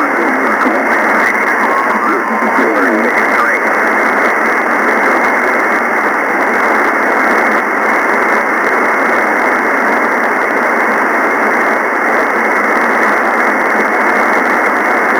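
Single-sideband receiver hiss from an SDR tuned to the FO-29 satellite's linear transponder downlink, a steady narrow-band rush of static with no station copied. Faint warbling traces of a weak, mistuned signal drift through it in the first few seconds.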